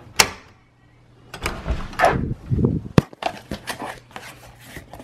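A doorknob latch clicks sharply as a door is opened, then cardboard box flaps rustle and scrape as they are pulled open by hand, with a sharp knock about three seconds in.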